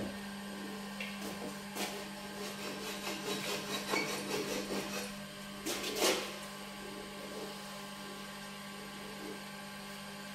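Wood lathe running with a steady hum while a walnut blank is worked, with irregular scraping and clicks over the first six seconds, the loudest about six seconds in; after that only the hum goes on.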